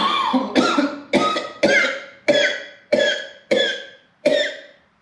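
A man singing a run of short, loud sung notes, about eight of them, each starting sharply and fading within half a second, with the gaps growing a little longer toward the end.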